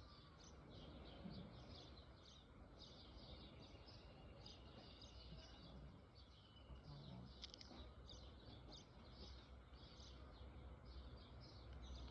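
Faint birds chirping in quick repeated short notes, about two to three a second, over a low background hum.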